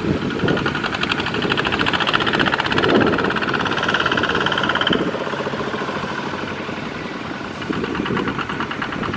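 Several two-wheel walking tractors with single-cylinder diesel engines running under load as they pull trailers through mud, a rapid, even knocking beat.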